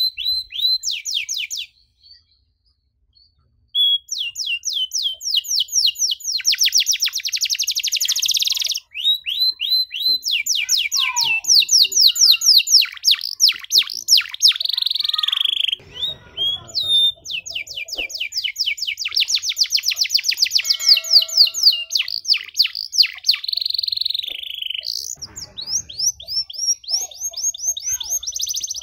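Domestic canary singing a long song of fast trills and rolling note runs, broken by a pause of about two seconds near the start.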